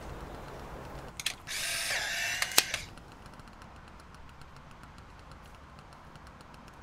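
Polaroid instant camera firing: a shutter click, then its motor whirring for about a second and a half as it ejects the print, with a sharp click near the end of the whir.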